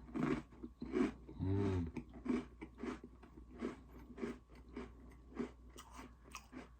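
Close-miked crunchy biting and chewing of Oreo cookies in a steady string of crisp crunches, with a short hummed "mm" about one and a half seconds in.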